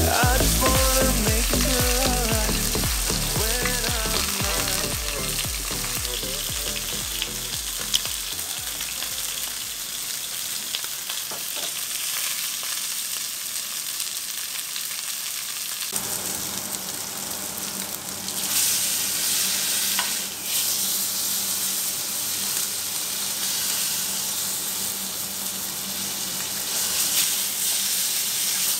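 A large roast of red meat searing in a black frying pan over a gas flame: steady sizzling of hot fat, louder about two-thirds of the way through, with a few clicks as metal tongs turn it. A song's backing music fades out over the first several seconds.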